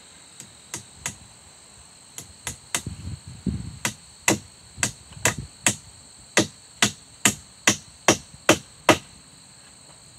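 Hammer driving nails into the birch logs of a log wall: a few scattered strikes, then from about four seconds in a steady run of sharper, louder blows about two a second, stopping about a second before the end.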